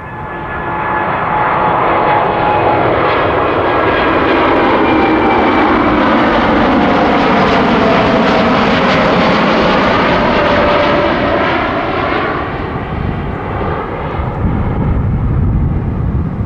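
Boeing 787-8 airliner's Rolls-Royce Trent 1000 turbofans at takeoff power as it climbs out overhead. The jet noise swells over the first couple of seconds and holds loud, with a whining tone that falls in pitch as the aircraft passes. It then eases into a low rumble near the end.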